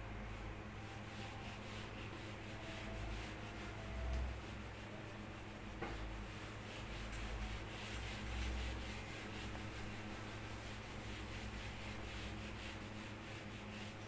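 A whiteboard eraser rubbed quickly back and forth across a whiteboard, a steady run of short wiping strokes as marker writing is erased.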